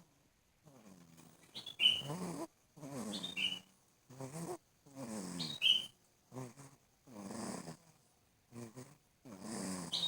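Snoring in sleep: a string of short rasping breaths, several falling in pitch, some ending in a brief high squeak.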